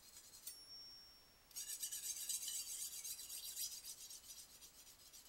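Steel kitchen-knife blade being drawn rapidly back and forth across a small handheld sharpener, a high, fast rasping. A brief pause about half a second in carries a thin ringing note, then a longer run of louder strokes follows. The knife is dull with a rounded-off tip and is being resharpened.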